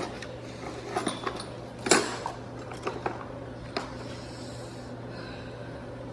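Scattered knocks and clinks of hard objects being handled and set down, about half a dozen, the loudest near two seconds in, over a steady low hum.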